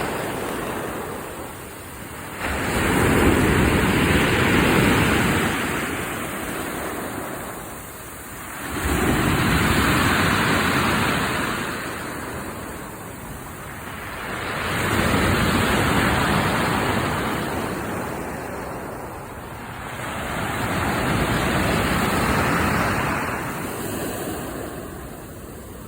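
Waves washing up a pebble beach and drawing back, the stones rattling in the backwash. Four waves come in, one about every six seconds, each swelling and then fading.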